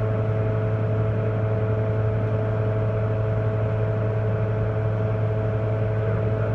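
Lincoln 455 welding power source running under test, a steady low electrical hum with a few higher steady tones and a whir that holds unchanged.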